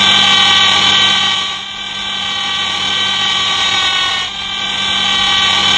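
A car making a steady, high-pitched abnormal whine, with a low hum under it; it dips a little in loudness midway.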